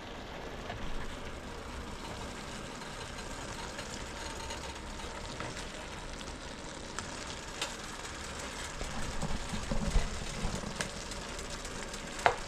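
Pot of soup cooking on the stove, a steady low simmering, with a few light knocks about nine to ten seconds in and a sharp click near the end.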